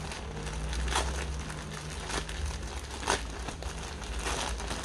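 Packaging being handled, crinkling and rustling, with scattered small clicks and scrapes.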